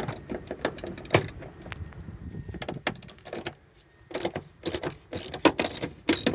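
Hand ratchet with a 14 mm socket clicking in irregular bursts as it loosens a seatbelt's lower anchor bolt, with scattered knocks of the tool against the bolt and trim.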